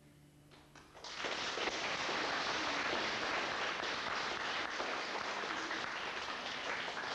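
The last note of a violin and classical-guitar ensemble dies away, then audience applause starts about a second in and holds steady.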